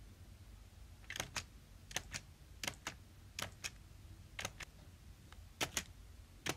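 Sharp clicks in quick pairs, two clicks a fraction of a second apart, repeated seven times at roughly one pair a second.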